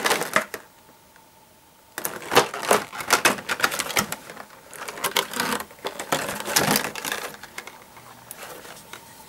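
Rapid clicking and clattering of hard plastic toy parts being handled and fitted together, starting about two seconds in and dying away after about seven seconds.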